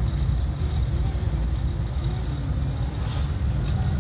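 Cabin noise of a 1994 Suzuki Carry 1000 driving along a paved road: a steady low rumble of engine and tyres.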